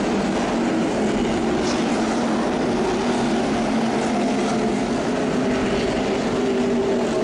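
NASCAR Nationwide Series stock cars' V8 engines running at speed on the road course, a steady loud drone of several cars passing.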